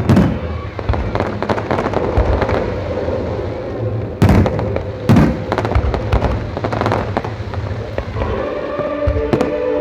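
Aerial fireworks bursting overhead: loud booms just after the start, about four seconds in and about five seconds in, over dense crackling from smaller shells.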